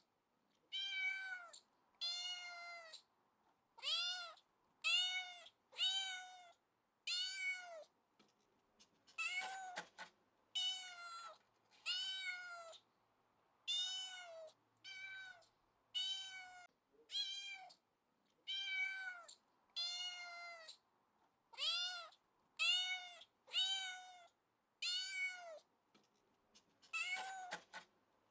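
Domestic cat meowing over and over, about one meow a second with short silences between. Each meow is a brief call that rises and falls in pitch.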